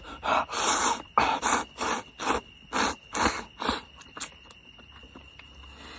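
A person slurping ramen noodles: about ten quick, noisy slurps over the first four seconds, then a few faint mouth clicks.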